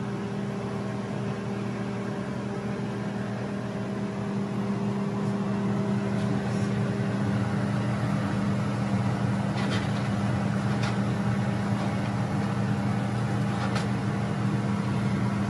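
Steady machine hum under the hiss of salmon and bell pepper simmering in coconut milk in a grill pan, the hiss growing a few seconds in. Near the middle and end come a few light clicks of a wooden spatula against the pan.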